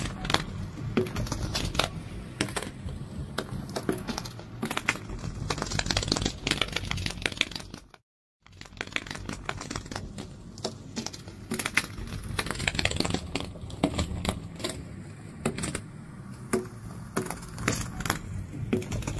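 Butterfly wings fluttering: a rapid, irregular stream of dry clicks and crackles over a steady low rumble. The sound breaks off completely for a moment about eight seconds in.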